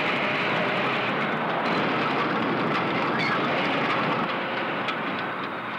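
Steady din of a car body assembly line, machinery running, with a few faint clanks.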